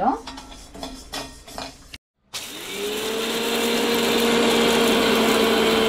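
A few light clicks and knocks, then about two seconds in a kitchen mixer grinder starts and runs at speed, powdering dry roasted split gram. Its whine climbs as the motor spins up and then holds steady and loud.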